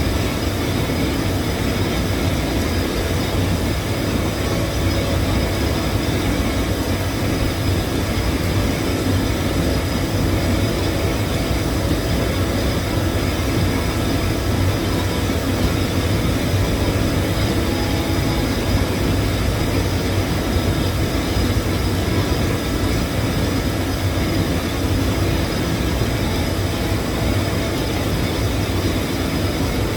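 Submerged-arc welding rig running steadily while welding a drum shell: a continuous low hum under an even industrial rumble, with no breaks or changes.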